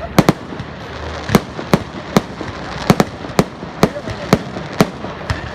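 Fireworks going off: a quick series of sharp bangs, about two a second, over a steady background noise.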